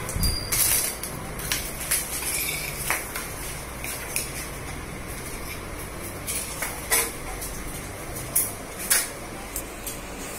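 Scattered light clicks and knocks at irregular intervals, a few sharper ones near the end, over a steady low background rumble.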